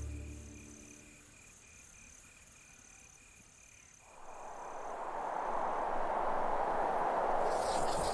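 Music fades out, leaving faint insect chirping, a quick, even pulsing of high tones. About four seconds in, a steady rushing outdoor noise swells in and stays to the end.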